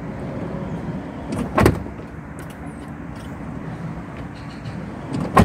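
Ford Transit camper van's sliding side door being pulled shut by hand: a clunk about a second and a half in, then a louder slam as the door latches near the end.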